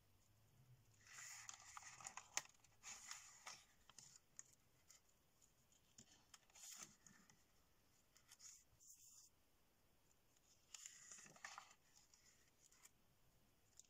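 Faint rustling and crinkling of printed scrapbooking paper sheets being lifted and turned over by hand, in about four separate bursts.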